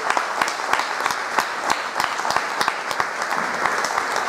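Audience applause: many hands clapping in a dense, steady patter after a song ends.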